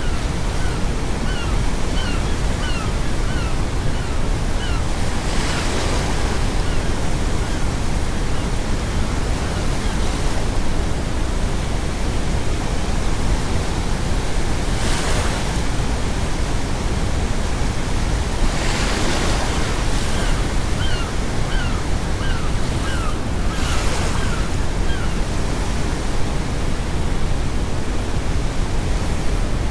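Sea waves breaking every four to five seconds over a steady deep brown noise. Gulls give a run of short repeated calls near the start, and another about twenty seconds in.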